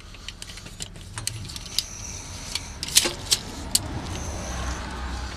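Scattered light clicks and metallic rattles of a steel tape measure being pulled out and handled against a tractor PTO shaft, over a low steady rumble.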